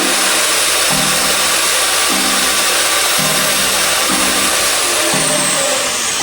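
Electric power tool running at full speed with a steady high whine and hiss, winding down about five seconds in, over background music with chords about once a second.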